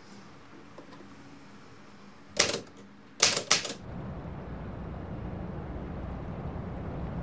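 A sharp double click, then a quick run of three sharp mechanical clicks about a second later. After the clicks a low rumble starts and grows steadily louder.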